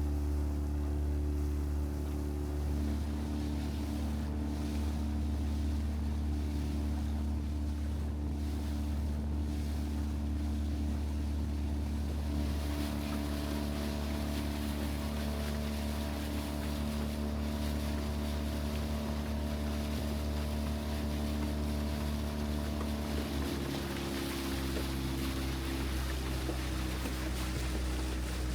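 Skiff's outboard motor running under way, its pitch stepping a few times, with wind and water noise rising over it about halfway through.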